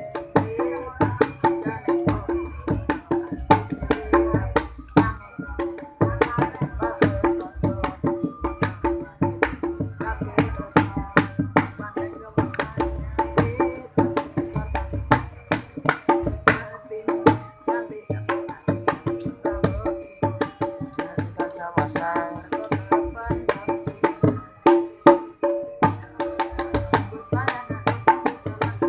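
Gendang (Indonesian two-headed hand drum) played in a fast, busy rhythm of sharp slaps mixed with deeper tuned strokes.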